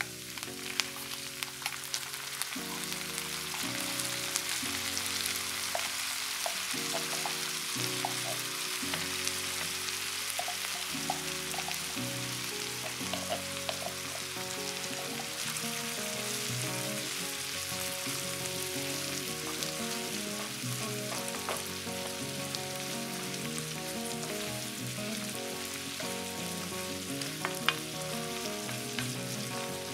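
Corned beef, potato cubes and onion frying in oil in a nonstick pan with a steady sizzle. A wooden spoon scrapes and taps as the corned beef is scooped from the can and stirred in, with scattered clicks and one sharp knock near the end.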